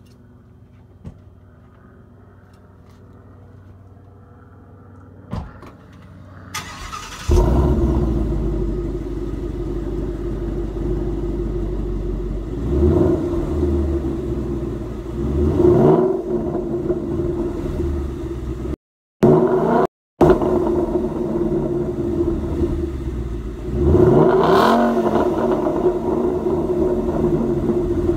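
2016 Mustang GT's 5.0-litre V8 starting and settling into a deep idle through a catback exhaust with GT500 chambered mufflers and a high-flow H-pipe, blipped three times with rising revs. The first six seconds are quiet apart from a few clicks, and the sound cuts out twice for a moment in the middle.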